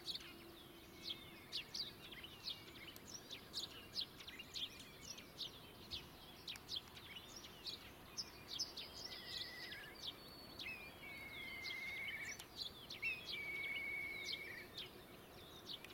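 Small songbirds chirping: a steady scatter of short, high chirps throughout, with three rattling trills of about a second each in the second half.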